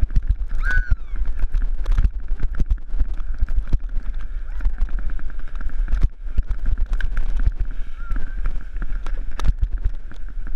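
Rapid irregular clicking from a conventional fishing reel as line is worked in on a hooked snook, over a constant rumble of wind on the microphone.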